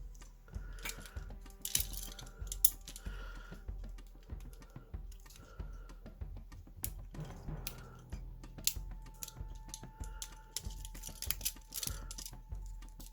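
Irregular light clicks and taps of handcuffs being worked with a pick or key while still worn, over faint background music.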